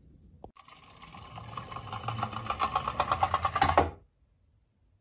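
Small plastic toy ambulance rolling down a wooden ramp: a fast clicking clatter of its wheels that grows louder and quicker as it speeds up, then stops abruptly about four seconds in.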